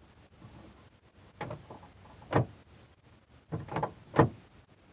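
A newly fitted 2G DSM passenger-side door handle being pulled and let go, about four short clacks of the handle and latch linkage. The latch does not release because the door is locked.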